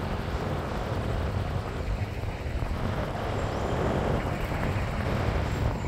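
Steady rumble of a vehicle in motion, engine and road or wind noise.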